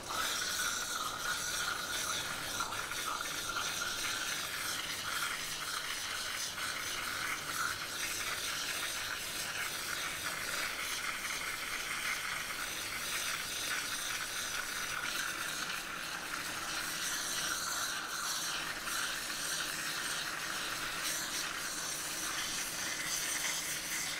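High-pressure water jet from a Save Your Fur grooming nozzle hissing steadily into a dog's soaked coat, the spray splashing into a stainless steel tub as it blasts out loose winter undercoat.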